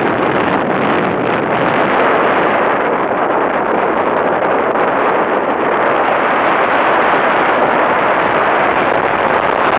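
Steady, loud rush of airflow buffeting the microphone of a camera mounted on a hang glider in flight.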